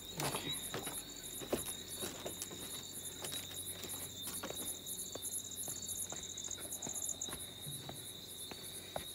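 Crickets and other night insects chirping: a steady high trill under a very high, rapid chirp that repeats about three to four times a second, with a few faint scattered clicks.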